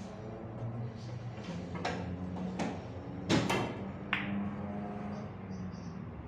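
Snooker balls clicking on a sinuca table: a quick series of four or five sharp knocks, the loudest a double knock about three seconds in, over a steady low hum.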